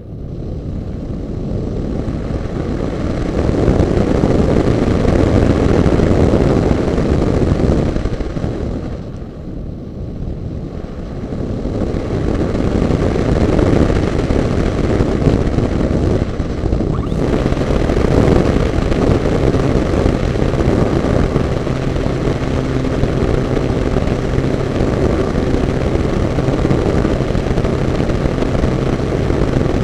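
Airflow rushing over a camera mounted on a Diamond 2500 model plane, swelling and easing with the airspeed. About two-thirds of the way through, a steady hum from the plane's motor and spinning propeller joins in.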